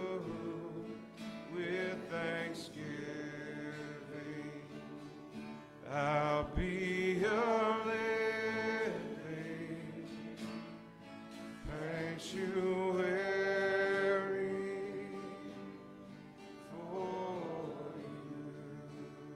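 Two acoustic guitars strummed under male voices singing a slow worship song, with sung phrases swelling and pausing. The song quietens toward the end.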